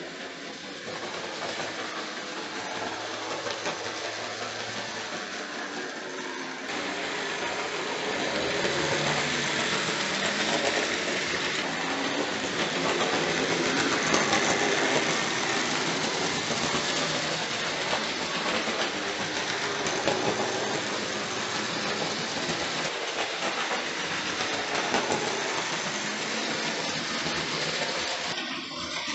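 Hornby OO gauge model trains running round the track, a steady rattling clatter of wheels on the rails with small motors running. It grows louder about a quarter of the way in and eases just before the end.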